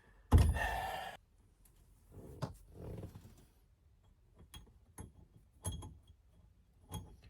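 Small metal parts of a steering-wheel quick-release hub being handled and fitted, giving a few light metallic clicks and taps with a faint ring, after a short, louder rush of noise about half a second in.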